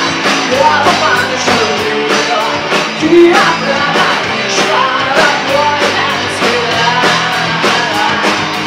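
Live rock and roll band playing: a woman singing lead over electric guitar, bass guitar and a steady drum beat.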